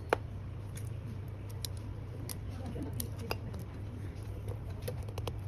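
Small clicks and taps of hand tools working on an iPhone 11 during a battery replacement: one sharp click just after the start, then scattered lighter ticks, over a steady low hum.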